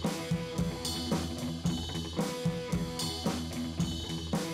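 Background music: a drum kit keeping a steady beat under a pitched backing.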